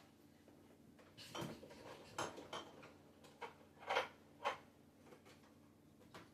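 Kitchen clatter of a cooking pot and utensils as chicken feet are put into the pot: a handful of separate knocks and scrapes, the clearest around the middle.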